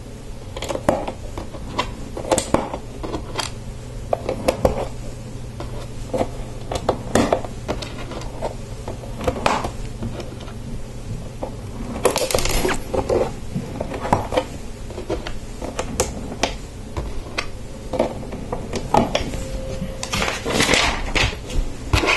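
Small plastic Lego pieces being pressed onto the studs of a boat's deck and handled on a tabletop: irregular sharp clicks and light clatters, sometimes several in quick succession.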